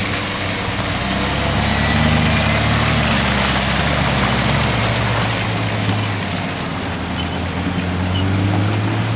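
Off-road 4x4 engine running under load, pulling harder about a second in, easing off after about five seconds and picking up again near the end, with a steady hiss of tyres and terrain over it.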